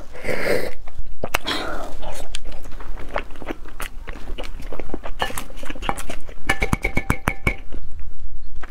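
Shells of boiled half-developed chicken eggs (huozhuzi) being cracked and peeled by hand close to the microphone: a steady run of crackling clicks and small taps, with a quick series of ringing taps about six and a half seconds in.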